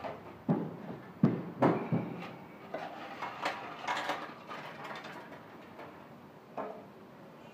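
A run of sharp knocks and clunks from things being handled, four loud ones in the first two seconds, softer knocking and rattling after, and a single knock near the end.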